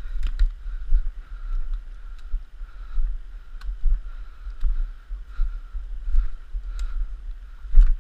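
Footsteps crunching through patchy snow and forest litter at a walking pace, over a constant low rumble of wind and movement on a GoPro's microphone.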